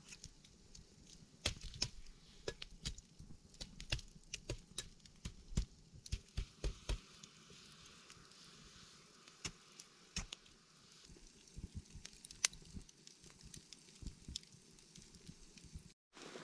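Campfire crackling, with a machete knocking repeatedly against a burning log between about one and a half and seven seconds in, knocking the embers off it. After that only lighter crackles and pops from the fire.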